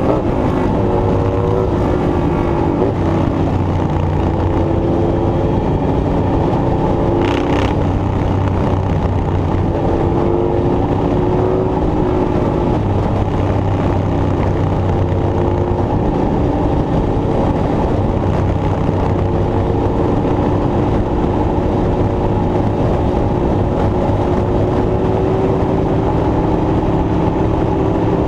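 An engine running steadily under load, with a whining tone that shifts slightly in pitch, and one short sharp noise about seven seconds in.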